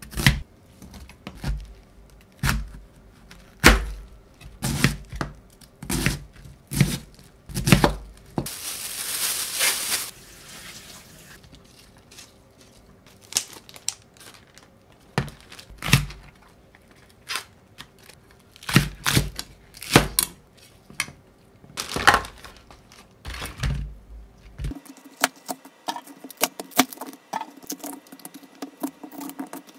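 A cleaver chopping vegetables on a plastic cutting board, with irregular knocks about once a second. A plastic bag crinkles for a couple of seconds about ten seconds in. Near the end the knocks give way to lighter, quicker clicks.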